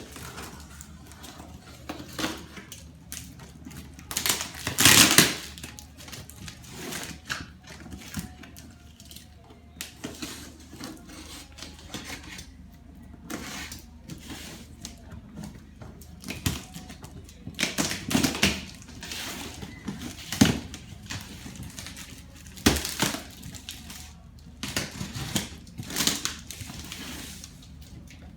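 Cardboard shipping box being opened and unpacked by hand: irregular scraping, rustling and crinkling of cardboard and packing material, with several louder tearing or crunching bursts, the loudest about five seconds in.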